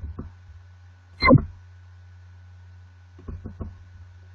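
A steady low hum with two short, sharp knocks, one at the start and one just over a second in, then a quick run of fainter ticks near the end.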